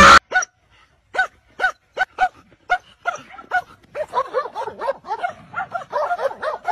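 A dog yelping in short, high-pitched cries: about six separate yelps spaced out at first, then coming faster and overlapping from about three seconds in.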